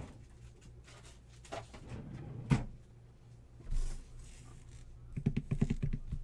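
Scattered clicks and a dull thump, then about a second of rapid typing on a computer keyboard.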